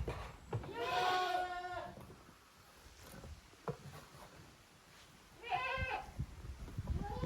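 Young goats bleating: a long wavering bleat about a second in, a second one past the middle, and another beginning near the end.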